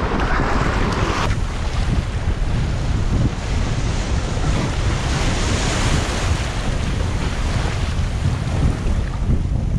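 Strong wind buffeting the microphone with a heavy rumble, over the wash of sea water and waves. A hiss in the middle range stops about a second in.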